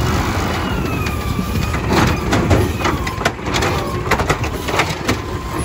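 Natural-gas Amrep automated side-loader garbage truck lifting a trash cart with its hydraulic arm and tipping it into the hopper: a hydraulic whine that slides down in pitch over the running engine, then clanks and knocks from about two seconds in as the cart is shaken empty.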